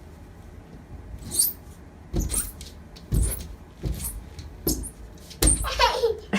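A cat scrabbling at cardboard inside a closed box, a series of short scraping scratches about once a second. Near the end the cat gives one meow that falls in pitch.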